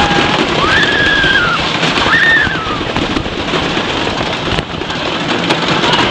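Theme-park ambience: a steady rushing noise, like water or a crowd, with three high cries that rise and then fall in the first two and a half seconds.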